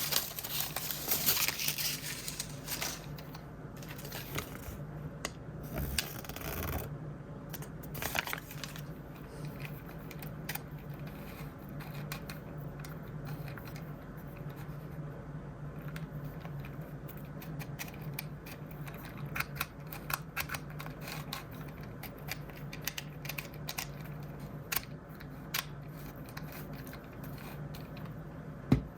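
Plastic blind-bag packaging crinkling and tearing open, then small plastic toy pieces clicking and tapping as they are handled, with a steady low hum underneath. The crinkling is densest in the first few seconds; after that come scattered sharp clicks.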